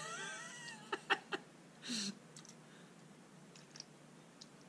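Coolant draining from a scooter engine through a clear hose into a plastic tub, heard faintly, with a few sharp clicks about a second in, a short vocal sound near two seconds and small ticks later.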